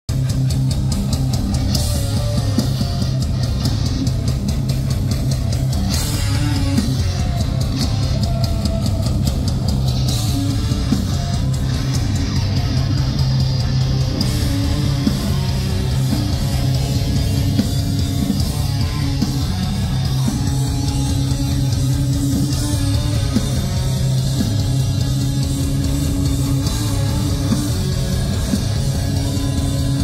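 Metalcore band playing live: distorted electric guitars, bass guitar and drum kit, loud and dense, with strong bass.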